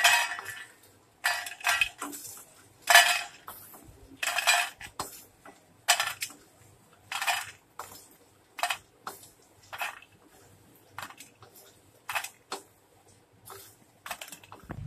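Wooden spatula scraping roasted makhana (fox nuts) out of a metal kadhai into a metal plate: short scraping strokes against the pan about once a second, the puffs tumbling over the metal. The strokes are louder in the first half and grow fainter and sparser toward the end.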